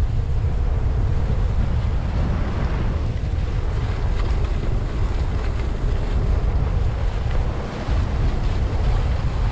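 Wind buffeting the microphone of a moving skier, with the steady hiss and scrape of skis running over groomed snow underneath.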